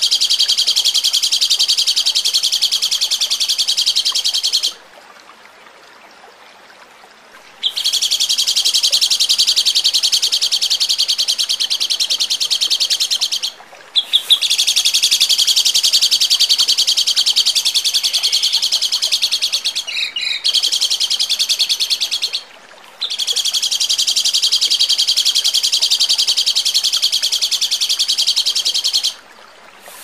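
Songbird master recording of harsh, rapid-fire 'tembakan' song: long bouts of fast-repeated high notes, each lasting about five or six seconds. A pause of about three seconds follows the first bout, and shorter breaks separate the later ones.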